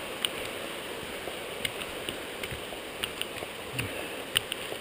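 Hikers walking on a rocky trail: footsteps and trekking-pole tips striking rock and ground in short, sharp, irregular taps, about one or two a second, over a steady rushing background.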